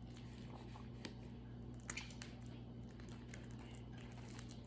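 Faint squishes and small clicks of homemade slime being kneaded and pulled by hand, over a low steady hum.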